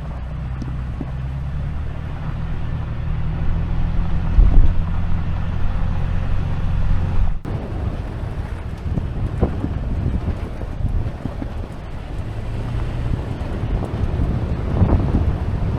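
Truck engine running steadily, with wind and road noise. The sound changes abruptly about seven seconds in, after which the engine tone is weaker and the noise rougher.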